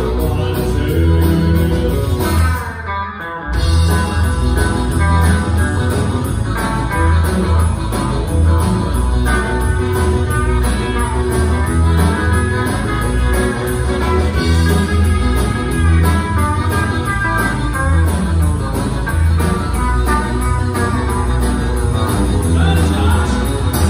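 Live country band playing with electric guitar and drums over a steady beat. The band breaks off briefly about three seconds in, then comes back in.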